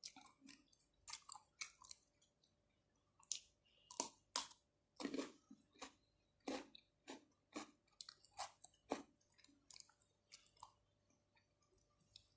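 Close-miked chewing of fresh shrimp and octopus with cucumber, with sticky, wet mouth smacks and clicks coming irregularly, one or two a second, loudest in the middle.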